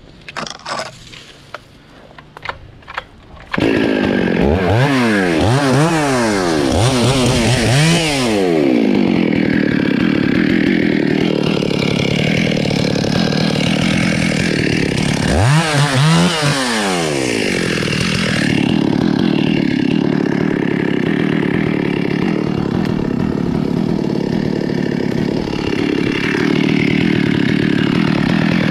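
Stihl MS 382 chainsaw starting up after a few short clicks. It is revved several times with rising and falling pitch, then runs steadily under load cutting into the trunk of a rain tree, with another rev up and down about halfway through.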